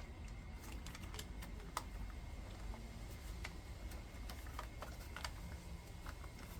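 Faint, scattered clicks and light taps of small plastic and metal chainsaw parts being handled and fitted by hand during reassembly, over a low steady hum.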